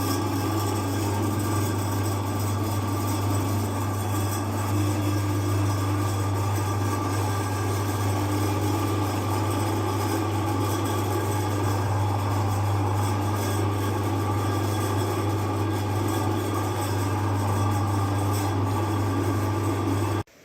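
Electric meat grinder motor running steadily with a low hum, cutting off suddenly near the end.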